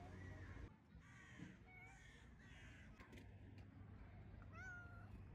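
Cat meowing several times: faint, short calls about a second apart, the last one near the end.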